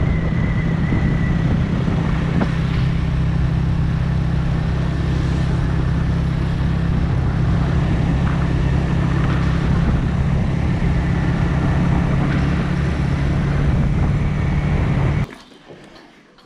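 A vehicle's engine running steadily at an even speed, with road and wind noise. It cuts off abruptly about fifteen seconds in.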